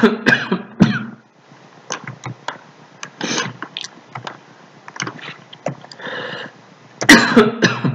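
Scattered short clicks of a computer keyboard and mouse, with brief wordless vocal sounds from a man at the start and again near the end.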